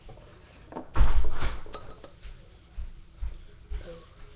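Milky coffee poured from a ceramic mug into a glass jar: a short splashing pour about a second in, then a few light clinks of china and glass.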